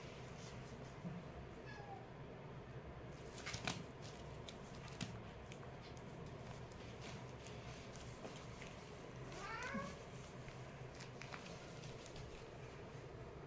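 A kitten meows once a little before ten seconds in, with a couple of fainter brief calls early on. A few sharp knocks come in between, as the kittens play-fight.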